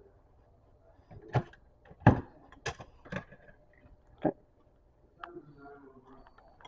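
Toys being handled and set down: five sharp knocks and clunks over the first few seconds, then a faint wavering pitched sound near the end.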